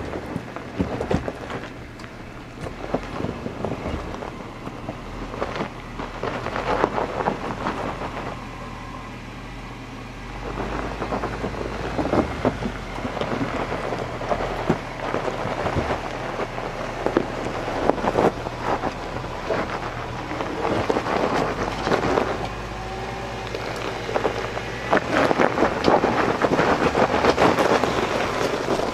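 Jeep Wrangler Rubicon crawling slowly over loose rock and gravel: tyres crunching and popping stones in many irregular cracks, over the low hum of the engine at crawl. It gets louder near the end as the Jeep passes close by.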